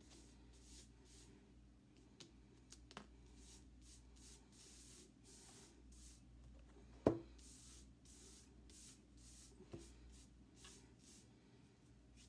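A hand brushing loose glitter across a board: a run of soft, quick swishes. One sharp knock about seven seconds in, with lighter taps near three seconds and near ten seconds.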